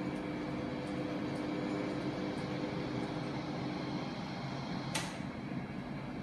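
Steady mechanical hum of a running 3D-printing filament production line, its motors and drives turning. A held tone in the hum fades out about four seconds in, and there is one brief sharp snap about five seconds in.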